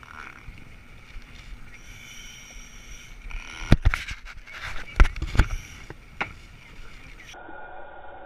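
Water sloshing around a diver's chest-mounted GoPro in its waterproof housing at the surface, with a cluster of sharp knocks and bumps on the housing about four to five and a half seconds in.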